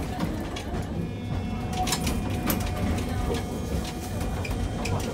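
Hiroshima Electric Railway 800-series tram running through a track junction, heard inside the car: the wheels give several sharp clacks over the switches and crossings above a steady running rumble. A faint steady whine comes from its Mitsubishi armature-chopper traction control.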